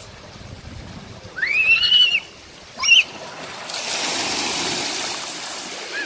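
A child sliding down a water slide into its splash pool: a rushing splash of water starting about four seconds in and lasting around two seconds. Before it come two short high squeals, the first about a second and a half in.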